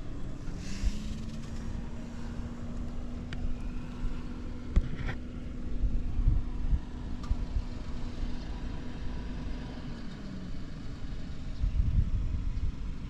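Yamaha Breeze 125 four-stroke ATV engine running. Its note rises about half a second in, holds steady for about ten seconds, then drops back down near the end, with a few light clicks along the way. The engine runs with no abnormal noise, as the seller claims.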